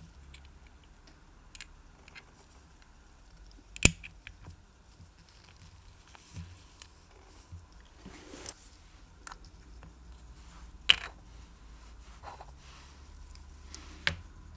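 Small sharp clicks and taps of watchmaker's tools and tiny parts being handled on a workbench, scattered and irregular; three sharper clicks stand out, about four, eleven and fourteen seconds in.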